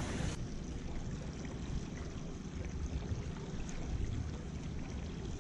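Water lapping and trickling against a small aluminium boat's hull, with a low steady rumble underneath.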